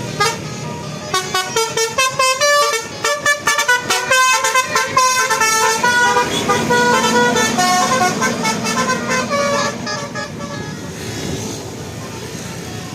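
Bus telolet horn: a multi-tone musical horn playing a quick run of stepped notes, then longer held notes, fading near the end.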